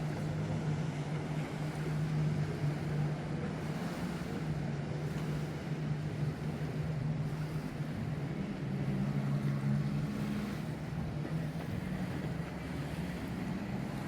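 A boat's engine droning steadily on the river, its note shifting about eight and a half seconds in.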